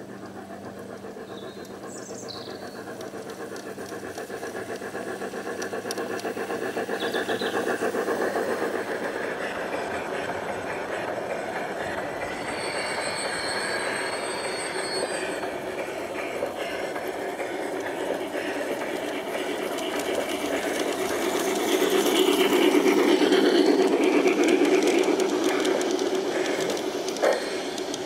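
G-scale model trains running on outdoor garden-railway track: wheels rolling and clicking over the rail joints, with the motors humming. The sound grows louder as a train nears, is loudest about three-quarters of the way through, and ends with a couple of sharp clicks.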